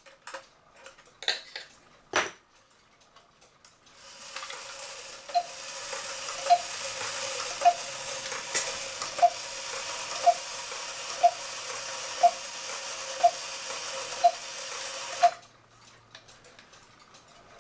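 A cuckoo clock's August Schwer movement, tripped by hand, running its strike train. A few sharp clicks from the lever come first. Then a steady whir sounds with about ten evenly spaced clicks, roughly one a second, and it stops suddenly.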